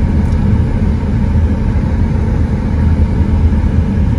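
Steady low rumble of a car on the move, engine and road noise heard from inside the cabin.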